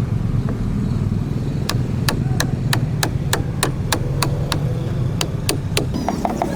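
A tool striking sharply and repeatedly during upholstery work on a sofa frame, about three strikes a second, quickening near the end, over a steady low hum.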